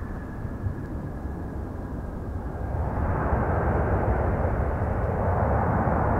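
Airbus A320 jet engines during the landing roll: a thin, steady whine fades out, then a broad rushing roar swells about halfway through and holds, as the engines spool up into reverse thrust to slow the aircraft.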